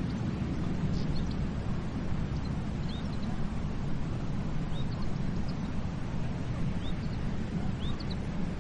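Steady wash and rumble of surf on a beach, without distinct breaking swells. Brief high bird chirps sound about every couple of seconds over it.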